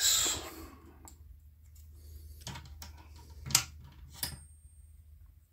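A brief scraping rasp as a drill bit is worked by hand against a small 3D-printed plastic nozzle. Then scattered clicks and taps of small tools and objects being handled on a workbench, the sharpest about three and a half seconds in.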